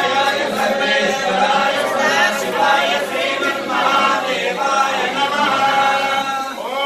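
Several male priests chanting Sanskrit mantras together in a steady, continuous chant, the recitation that accompanies an abhishekam, the ritual bathing of the deity.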